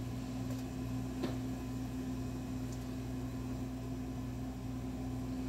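Steady low electrical hum with a light hiss, and one faint click about a second in.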